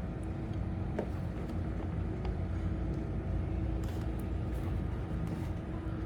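Steady low background rumble with a faint hum, and a few small clicks.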